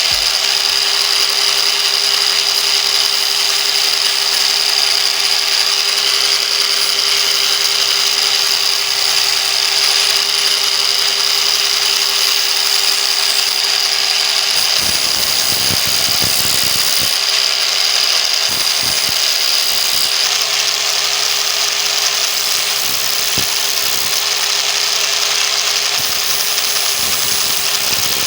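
Angle grinder with a sandpaper disc running steadily, a continuous high motor whine over a rushing grind, with a few low knocks in the second half.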